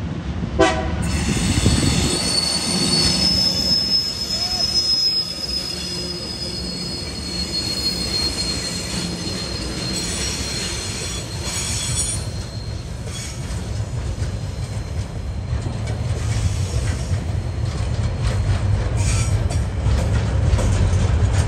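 Diesel-hauled freight train passing close by, its wheels squealing in a high, steady tone that sinks slightly in pitch over the first several seconds. Underneath are the clatter of the wagons and a low rumble that grows louder near the end.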